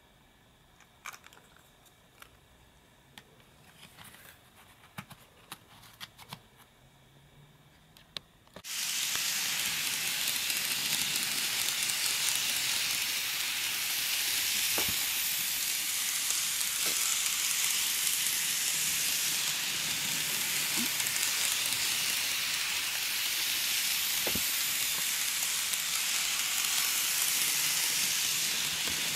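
Small plastic clicks from handling a Kato N gauge model railway car. About nine seconds in, this gives way suddenly to a steady high hiss, with a faint hum and an occasional tick, from the Kato N gauge JR 211 series model train running round its track.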